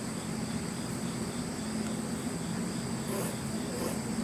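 Steady chorus of insects trilling in high, even tones, over a low steady hum.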